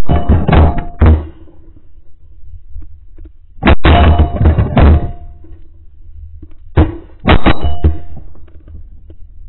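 Shotguns fired by several hunters in three loud volleys, each a quick string of shots over about a second, the volleys about three seconds apart.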